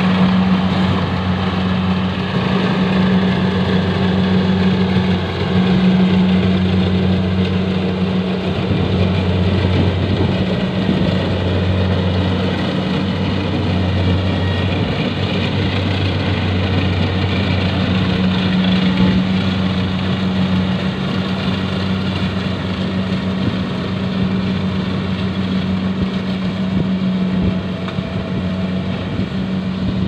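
Compact tracked rice combine harvester's engine running steadily with a constant low hum as the machine cuts and threshes the standing rice, growing a little fainter near the end as it moves off.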